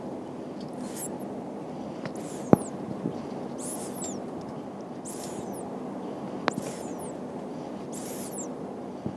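A French lop rabbit snoring softly: a faint, high, wheezy sound on each breath, about once a second. Two sharp clicks stand out, one about two and a half seconds in and one near six and a half seconds.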